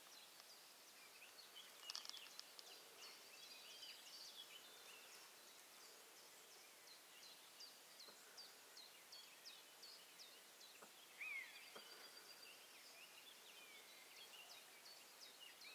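Faint songs and calls of several small birds: many short, high chirps in quick series, with a few louder notes, one of them sliding downward, near the middle.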